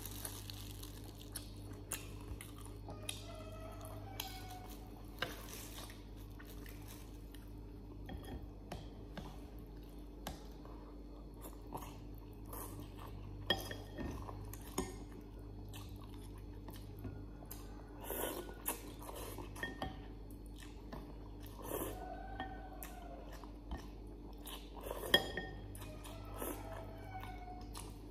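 A person eating noodles up close: wet chewing and a few slurps, with short clicks of chopsticks against the food and bags. A steady low hum sits underneath.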